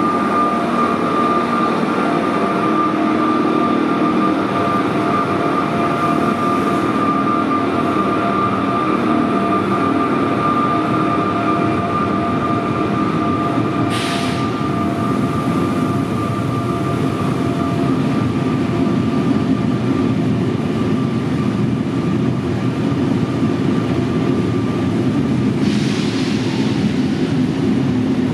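SNCF BB7200 electric locomotive pulling its coaches out of an underground station: a steady electric whine over the rumble of the coaches' wheels on the rails, the whine fading out near the end. Two brief hisses cut through, one about halfway and one near the end.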